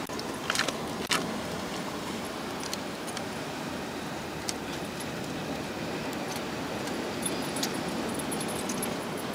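Steady rushing wash of the sea on a rocky shore, with a few faint small clicks.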